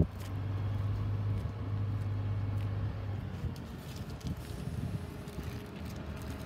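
A crane's engine running with a steady low hum that fades about three seconds in, leaving a low rumble with a few faint knocks.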